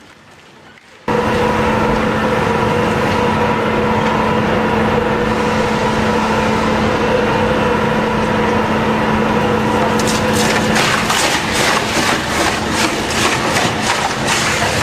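Heavy wood-processing machine starts running abruptly about a second in, with a steady droning hum. From about ten seconds in, rapid cracking and crunching of wood being broken up joins the drone.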